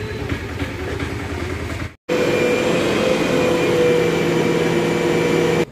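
Vehicle engines idling with a low rumble. About two seconds in the sound cuts off abruptly, and a louder, steady bus engine drone with several held tones takes over.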